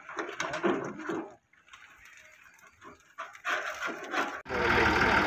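Uneven low sounds with a quiet gap, then a little over four seconds in a Massey Ferguson 260 tractor's diesel engine cuts in suddenly, running steadily and louder than anything before it.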